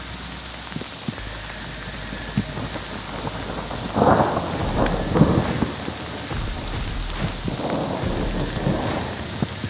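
Steady rain falling at night, with two louder rushing swells about four and eight seconds in.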